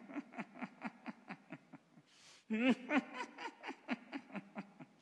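A man chuckling softly in quick repeated pulses of breath and voice, with an audible breath in about two seconds in.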